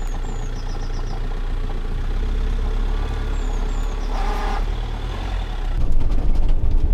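Fiat Ducato van's engine running steadily after starting, getting louder about six seconds in as the van sets off.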